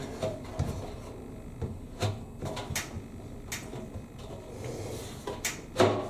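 Irregular sharp clicks and knocks, about eight of them, from plastic drum paddles being handled and clipped onto a washing machine's steel drum.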